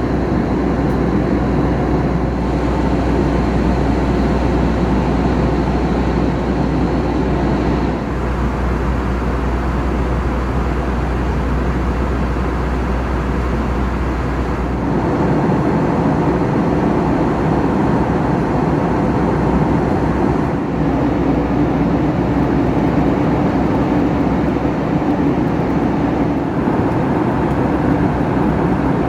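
Steady cabin noise of an Airbus A321 in flight: a constant rush of air with a low engine hum. The sound changes about halfway through, as the low hum drops away and the rushing brightens.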